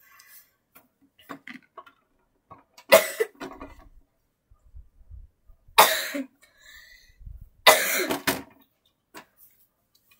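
A person coughing three times, a few seconds apart, with faint clicks and rustles between.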